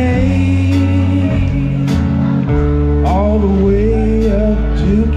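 Music: a singing voice with wavering held notes over guitar and sustained bass notes, a new sung phrase starting about three seconds in.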